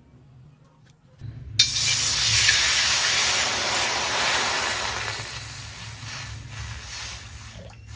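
Water poured into a hot wok, hissing and sizzling as it hits the metal and flashes to steam. The hiss starts suddenly about a second and a half in, is loudest soon after, and dies down toward the end.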